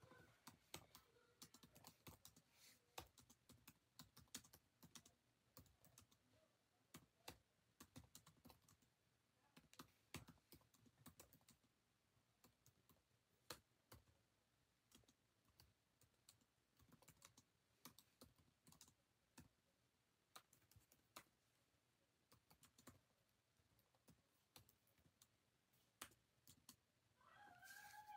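Faint, irregular clicks and taps against near silence. Near the end comes a short, high whine that wavers in pitch.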